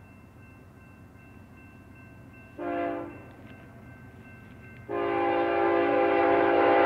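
Diesel locomotive air horn on an approaching BNSF intermodal train, a chord of several tones: one short blast about two and a half seconds in, then a long blast starting near five seconds that is still sounding at the end, over a faint steady low rumble.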